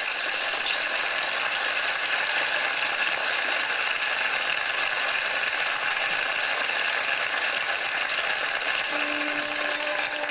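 Water running steadily from a tap or shower, an even rushing hiss. Faint music begins to come in near the end.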